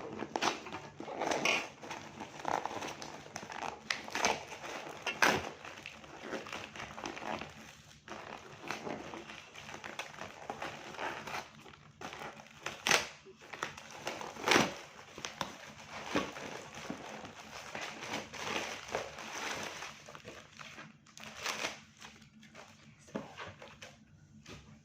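Packaging of a mosquito net being handled and opened by hand: irregular rustling and crinkling, with sharp clicks and knocks throughout.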